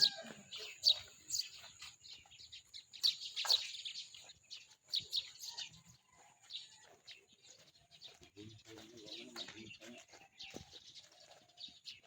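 Birds chirping in many short, sharp calls scattered irregularly, with a faint steady high tone behind them.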